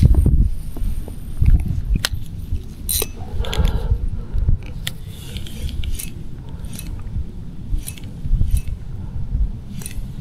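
Wind buffeting the microphone, with light clicks and metallic ticks from fishing tackle being handled, coming roughly every half second in the second half.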